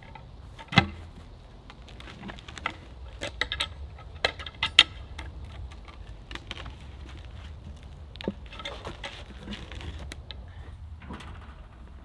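Scattered wooden knocks and clicks from a log being shifted and wedged into place on a sawmill bed, with one sharp knock about a second in and a quick run of knocks and clicks around three to five seconds in, over a low steady rumble.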